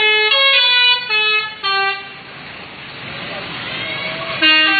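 Indonesian bus 'telolet' musical air horn playing a quick run of stepped notes for about two seconds. This gives way to a rising rush of traffic noise, and the horn's melody starts again near the end.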